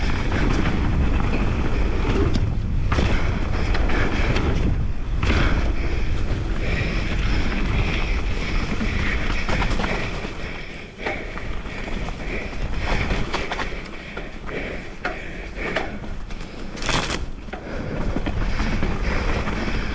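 Wind buffeting an action camera's microphone as a 2018 Giant Reign mountain bike runs fast down a dirt trail, with tyre noise and scattered rattles and knocks from the bike over bumps. It gets quieter about halfway through, and there is one sharp knock near the end.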